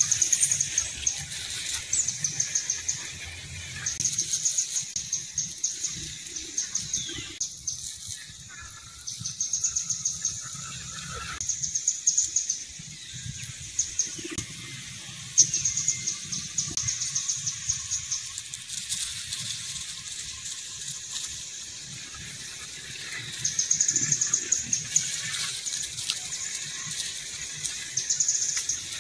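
Outdoor ambience: high-pitched, fast trilling calls in repeated bursts of a second or two, over a steady low rumble.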